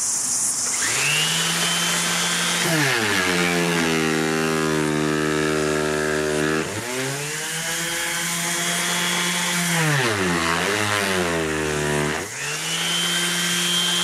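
Makita cordless random orbit sander starting up and run at top speed while pressed down hard in a stall test. Its motor whine drops in pitch as it bogs down under the load, twice, and climbs back each time the pressure eases, without stalling.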